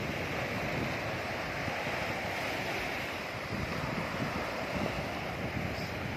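Sea waves washing onto a beach in a steady hiss, with wind buffeting the microphone in low rumbling gusts.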